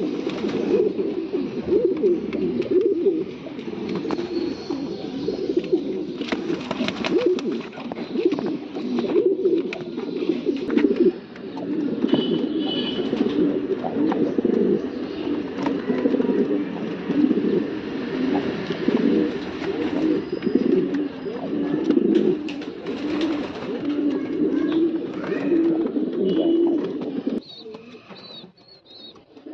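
Racing pigeons cooing continuously in a loft, several birds overlapping in a steady throaty chorus. The cooing drops away shortly before the end, leaving a few faint high chirps.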